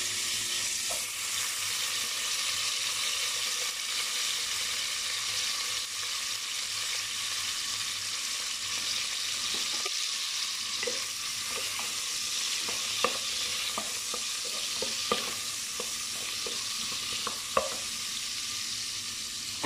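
Sliced shallots and garlic sizzling as they are sautéed in a stainless steel pot, a steady frying hiss. In the second half a wooden spoon stirs them, knocking against the pot, with three sharper knocks near the end.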